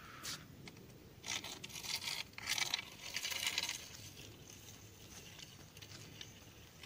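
Footsteps crunching on a gravel path: a run of short scraping crunches, loudest from about one to four seconds in, then fainter.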